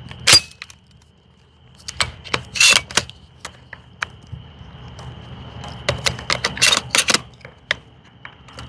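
Shotgun shells being pushed one at a time into the magazine tube of a Hatsan Bulltac semi-automatic shotgun: a string of sharp clicks and clacks, some single and some in quick clusters.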